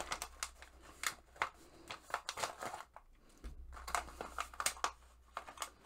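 Paper and plastic packaging rustling and crinkling as a kraft-paper toolkit pouch is opened and its plastic-wrapped tools slid out, in short irregular crackles.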